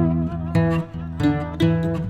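Background music: plucked-string instrumental, guitar-like, with notes changing every fraction of a second.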